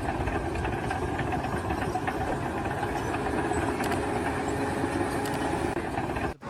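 A machine's engine running steadily at a construction site, an even mechanical drone that cuts off abruptly near the end.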